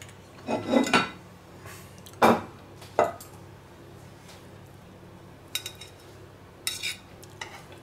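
A carving fork and ceramic plates clinking and knocking while slices of rolled pork roast are served from a wooden board. There are a few separate knocks, the loudest about two seconds in, then lighter clicks near the end.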